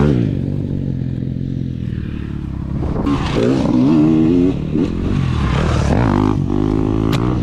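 Dirt bike engine running close by and revving, with two surges in revs, one about three seconds in and another around six seconds in.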